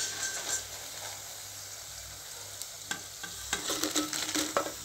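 Batter-coated ivy gourd pieces sizzling in hot oil, fried golden and crisp, as a wire spider strainer lifts them out. A few light metallic clinks of the strainer come in the second half.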